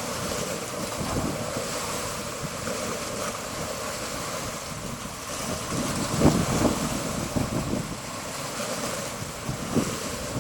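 Sea waves washing onto a beach, with wind buffeting the microphone in low, uneven gusts; the strongest gust comes about six seconds in.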